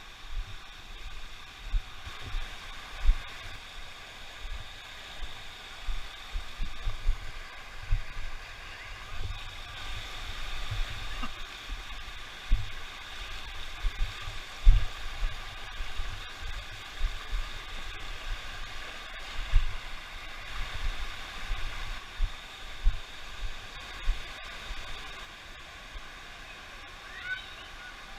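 Steady rushing of a waterfall and its stream, broken by irregular low thuds on the microphone.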